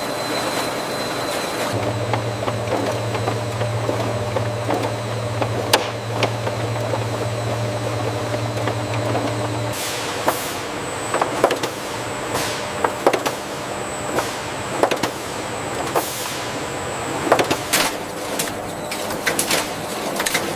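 Noodle production line machinery running with a steady low mechanical hum. Sharp clicks and clanks come throughout and grow frequent from about ten seconds in, when the low hum drops away.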